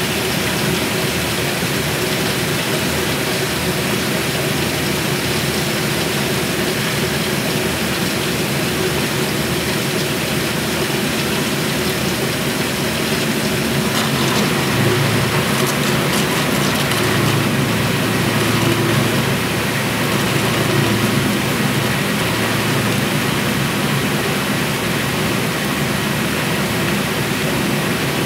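1963 Frigidaire Custom Imperial washer in its spin cycle: the tub spins at speed, driven by its Multi-Matic belt-drive transmission, making a steady mechanical whirring and rushing. A deeper hum comes in about halfway through and fades again.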